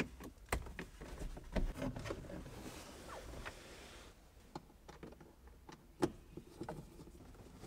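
Faint, scattered clicks and knocks of hands and a small tool working plastic trim and a switch loose in a Mazda MX-5 Miata's dash and centre console.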